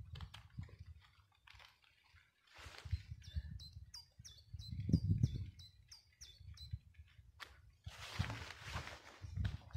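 A songbird singing a quick run of about a dozen short, repeated high notes, a little over three a second, over a low, uneven rumble of wind on the microphone.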